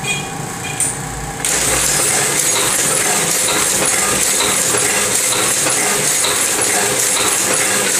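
Windmill-type platen printing press ('aspa') set up as a numbering press, running. About one and a half seconds in, its metallic clatter becomes much louder and stays steady, with fine regular clicking and a heavier beat about once a second as the press cycles through sheets.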